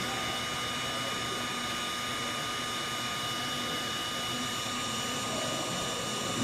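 Electric hot-air blower running steadily with a constant fan whine, heating heat-shrink tubing over a crimped wire butt connector.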